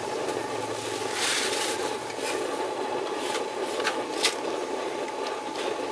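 A cooking utensil scraping and knocking in a pan or pot, five or so short sharp scrapes over a steady rushing background noise.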